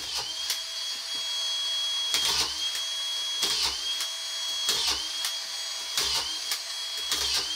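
Makita DFR550 cordless auto-feed screwdriver running with a steady high whine. Its pitch dips each time it drives a collated screw into a timber beam, about five screws at an even pace, roughly one every second and a quarter.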